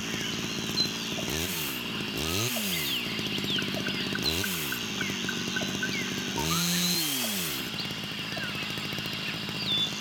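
Rainforest ambience: a steady high insect drone and scattered bird chirps, with a short ticking trill in the middle. Four low buzzing sounds pass through, each rising then falling in pitch over about a second. The last one, about six seconds in, is the longest.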